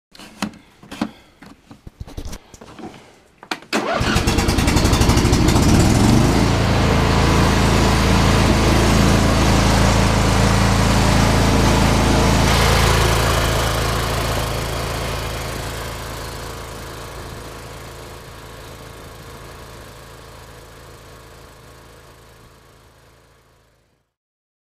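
John Deere LA120 lawn tractor's Briggs & Stratton engine being started: a few seconds of clicks and cranking, then it catches about four seconds in and runs steadily, now off the choke after its carburetor jets were cleaned. The running sound fades away gradually over the last ten seconds.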